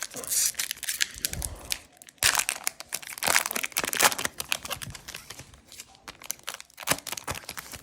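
Foil wrapper of an Upper Deck hockey card pack crinkling and tearing as it is ripped open and crumpled by hand, in two busy stretches that thin out over the last few seconds.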